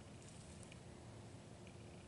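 Near silence: faint steady background hiss with a low steady hum and a few faint ticks.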